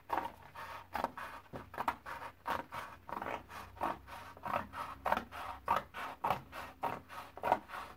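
Scissors cutting through a sheet of heavy 140 lb Strathmore watercolor paper in a steady run of snips, about three or four a second.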